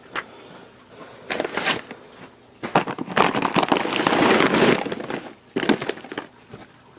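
Packaging being handled: a brief rustle, then a longer stretch of crinkling and rustling of a bag, ending in a few sharp crackles.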